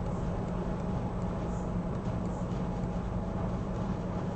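Steady low background hum with a constant low tone and no distinct events.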